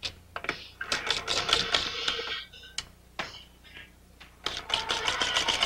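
Lumière cinematograph being threaded with film: scattered clicks and rattles of the film and gate mechanism, then about four and a half seconds in the hand-cranked mechanism starts running with a fast, even clatter.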